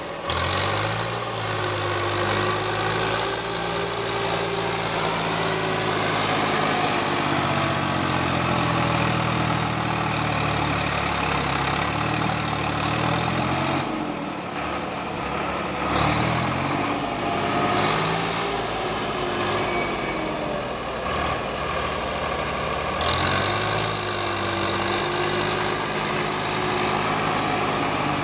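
Swaraj 855 FE tractor's three-cylinder diesel engine running steadily, its note dipping and rising a few times around the middle.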